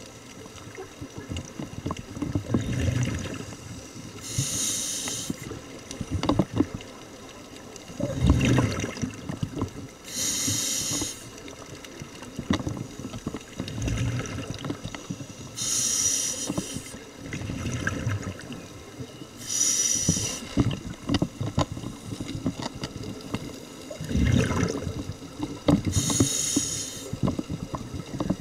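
Scuba diver breathing through a regulator underwater: a hiss on each inhale alternating with a rumbling burst of exhaust bubbles on each exhale, about every five to six seconds.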